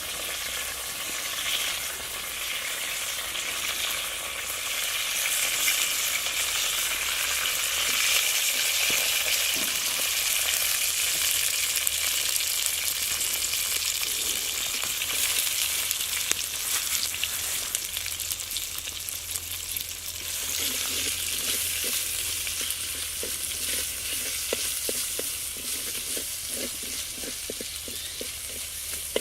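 Food frying in hot oil in a pan, a steady sizzle while it is stirred, with a ladle knocking against the pan in the last few seconds.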